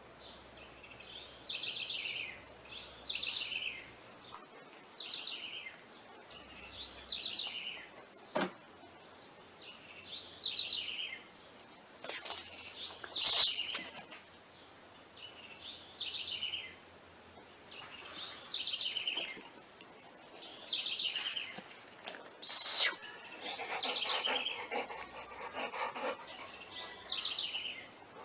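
A bird singing a short, high, trilled phrase that falls in pitch, repeated over and over about every second and a half to two seconds. A few sharp knocks break in, the loudest about thirteen seconds in and another near twenty-three seconds.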